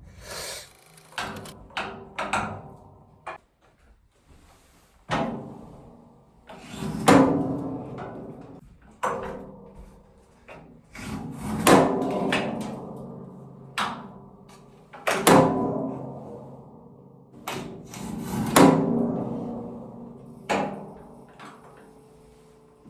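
A series of sharp knocks, about a dozen at uneven intervals of one to two seconds, each followed by a short ringing tail.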